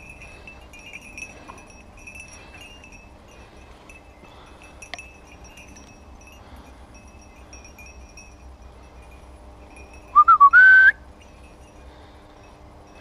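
A person whistles once, loud and short, about ten seconds in: a wavering note that steps up to a higher held pitch, lasting under a second.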